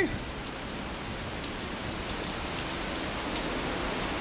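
Steady heavy thunderstorm rain, an even hiss with scattered close drop hits.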